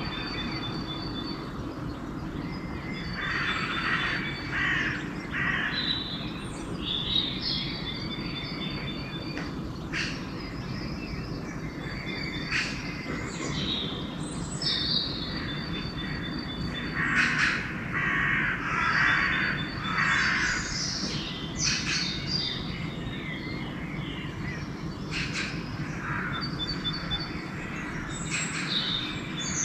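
Pre-dawn bird chorus: crows cawing repeatedly, loudest about two-thirds of the way through, while smaller songbirds sing high, repeated trilled phrases, over a steady low background hum.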